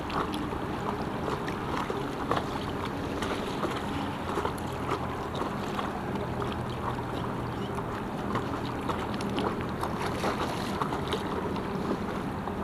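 River current splashing and lapping around an inflatable stand-up paddleboard and its paddle, a steady rush of moving water dotted with many small splashes and drips.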